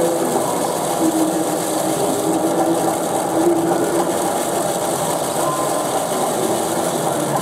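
Working model stone loader: a small motor running with stone chippings rattling down a chute into an open wagon, as a steady, continuous rattle.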